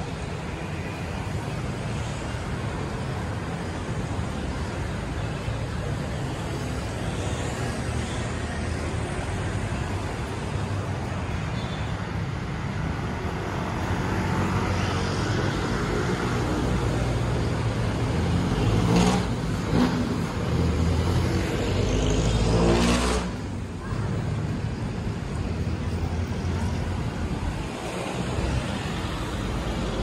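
Steady traffic on a busy multi-lane city boulevard, cars and motorcycles passing. Between about two-thirds and three-quarters of the way in, vehicles pass close by, louder, with an engine speeding up and then falling away.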